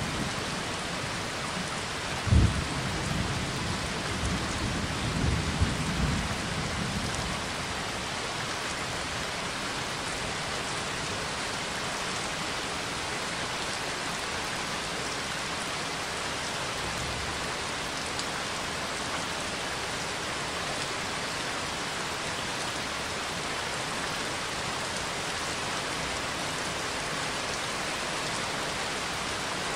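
Rain and thunder recording: a steady hiss of rainfall, with a sharp thunderclap about two seconds in and low rumbling of thunder that dies away by about seven seconds, leaving steady rain.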